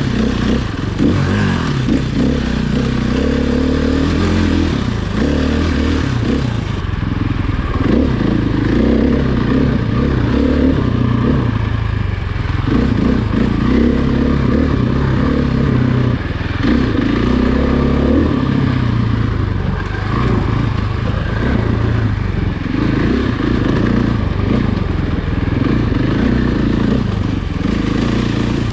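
Off-road vehicle engine running hard, its revs rising and falling every second or two.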